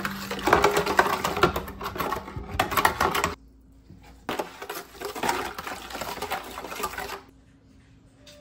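Metal spoon stirring liquid in a plastic mixing bowl, a fast run of clicks and scrapes against the bowl. It comes in two spells of about three seconds each, with a pause of about a second between them.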